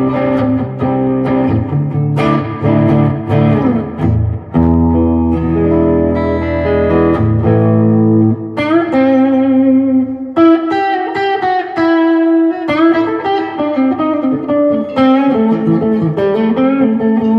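Squier Classic Vibe 70s Jaguar electric guitar played through an amp: chords with a full low end at first, then a picked single-note lead line from about halfway through.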